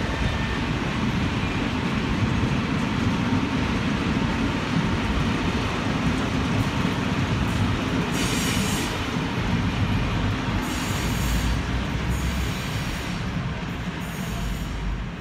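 A freight train rolling steadily past: a dense rumble of wheels on rails. About halfway through come brief bursts of high-pitched wheel noise every couple of seconds.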